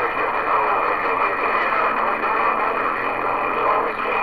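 CB radio receiver speaker putting out a strong incoming signal as a steady, narrow-band rush of noise with nothing clearly spoken, the signal strong enough to hold the S-meter past S9.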